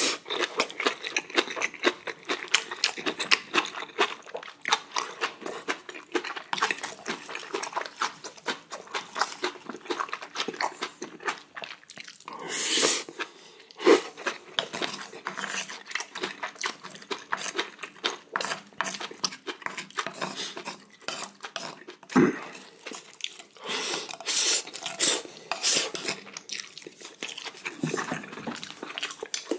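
Close-miked eating: wet chewing and slurping of mouthfuls of spicy braised kimchi with beef large intestine and rice, with the wooden spoon knocking and scraping on the dishes now and then.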